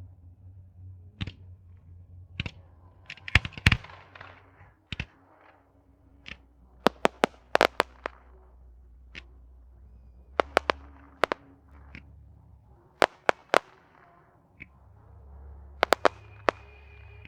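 Fireworks display: aerial firework shells bursting with sharp bangs at irregular intervals, several in quick succession, with crackling after some of the bursts.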